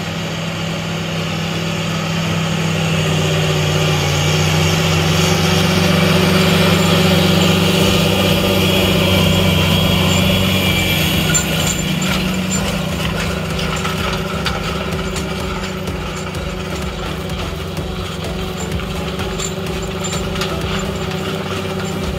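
The 9.0-litre six-cylinder turbo diesel of a John Deere 8430 tractor runs hard under load, pulling a 915 V-Ripper subsoiler through the ground. It is a steady engine drone, swelling a little around the middle, with scattered clicks in the second half.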